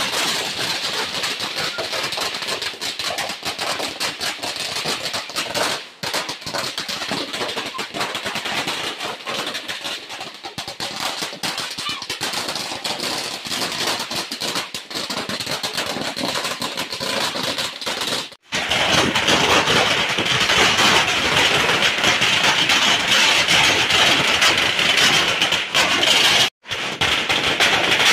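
A 50,000-wala firecracker string going off in a rapid, continuous stream of bangs. The stream briefly cuts out about two-thirds of the way through and again near the end, and is louder after the first break.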